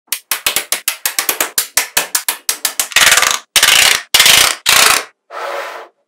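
Magnetic balls clicking and snapping together in a quick run of sharp clicks, about four or five a second. About three seconds in, this gives way to four louder half-second rattles of many balls, then a fainter rattle near the end.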